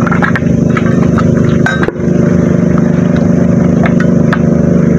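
A small engine running steadily at one speed, with an even pulse and no change in pitch. A few light clicks sound over it.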